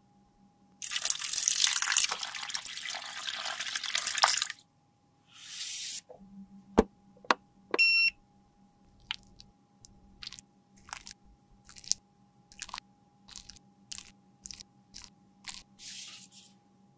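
A loud hiss lasting about three seconds and a shorter one after it, then two sharp clicks and a short electronic beep from a white box with a digital timer, followed by a run of light, quick rustles about twice a second.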